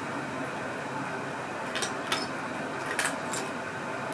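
Two cats eating dry kibble from ceramic food bowls: sharp clinks and clicks of kibble and teeth against the bowls, a pair about two seconds in and another pair around three seconds.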